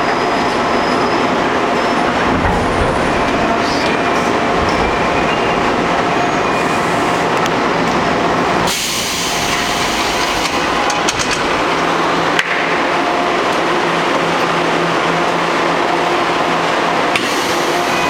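Seoul Metro Line 2 subway train noise heard from inside the car, a steady rumble with a low hum. About nine seconds in, the sound changes abruptly with a burst of hiss, followed by a few clicks.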